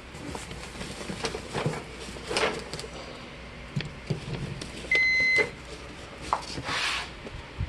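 A single short electronic beep, about half a second long, from the Kenmore water softener's control unit as it is plugged back in and powers up, set among scattered clicks and rustling from handling the unit.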